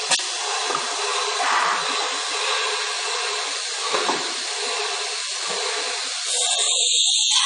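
CNC router running, a steady hissing machining noise with a sharp click right at the start. It turns louder and higher-pitched about six seconds in.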